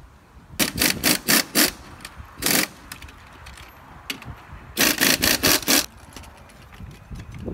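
Pneumatic impact wrench on the lug nuts of a forklift wheel, triggered in short bursts. There is a quick cluster of bursts about half a second in, a single burst about two and a half seconds in, and another cluster of about five bursts near the five-second mark.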